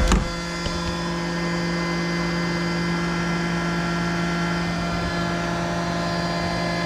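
CNC mill spindle running steadily at about 10,000 rpm while a 1/4-inch ball end mill profiles an aluminium plate: a steady machining whine made of several even tones. A brief knock right at the start.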